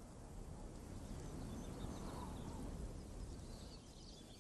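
Quiet natural outdoor ambience, an even soft hiss, with faint high bird chirps coming in near the end.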